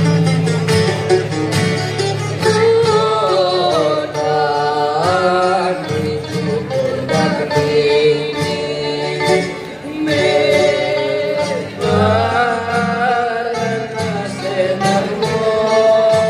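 Live Greek rebetiko-style song on two bouzoukis and two acoustic guitars, with steady strummed chords. Young male voices sing the melody, coming in a few seconds in.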